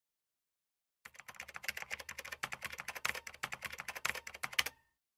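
Typing sound effect: a fast, steady run of keyboard key clicks that starts about a second in and stops shortly before the end.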